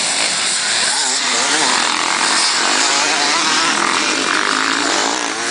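Several dirt-bike engines revving and running together in a race, their pitches rising and falling.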